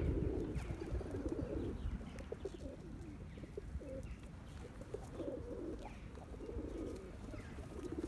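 Feral pigeons cooing: low coos that come and go in short spells, over a steady low rumble.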